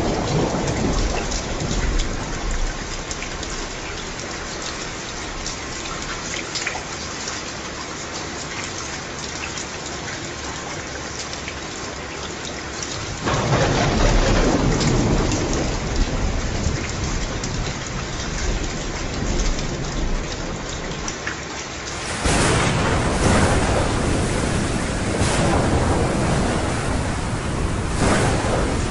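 Steady heavy rain with thunder rolling in the background: a long rumble about halfway through, then a sudden step up to louder, brighter rain with more rumbling near the end.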